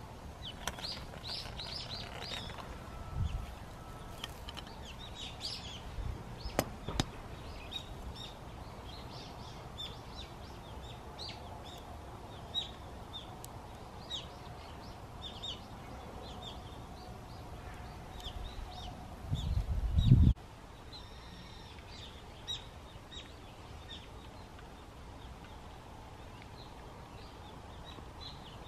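Small birds chirping in short, repeated high calls over a steady outdoor background, with a few sharp clicks. About twenty seconds in, a brief low rumble is the loudest sound.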